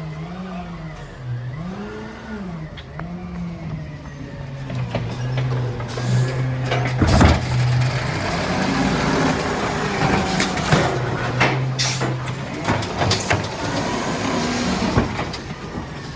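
Recycling truck's engine running, its pitch rising and falling several times in the first few seconds and then holding steady. From about six seconds in comes a run of bangs and clatter, the loudest at about seven seconds.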